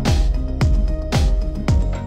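Background music with a steady beat, about two beats a second, over held chords.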